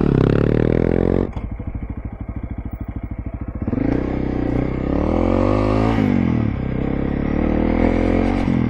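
Motorcycle engine revving up, the pitch rising and then dropping back several times as it pulls through the gears, with a stretch of low-rev running in the middle where the separate firing pulses can be heard.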